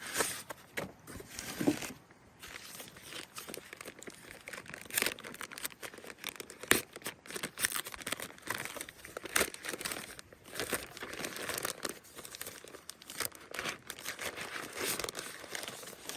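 Packaging being unwrapped by hand: irregular crinkling and tearing of plastic and paper wrapping, with scattered clicks and light knocks as parts are handled.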